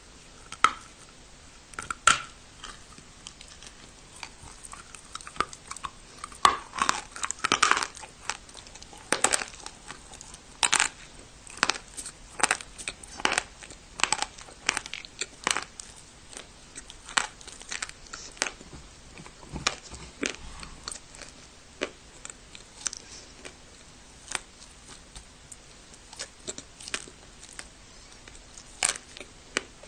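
Person biting and chewing dry clay (turbah prayer clay) close to the microphone: many sharp, irregular crunches and cracks, coming thickest a few seconds in.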